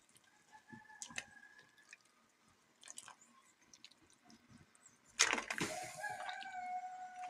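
A rooster crowing twice: a fainter crow in the first two seconds, then a louder, long crow starting about five seconds in. A few light clicks sound in between.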